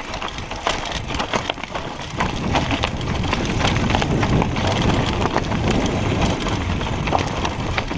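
Mountain bike riding down a rocky singletrack: tyres crunching over loose stones, with many quick clicks and rattles from the bike, and a low rumble that grows louder about two seconds in.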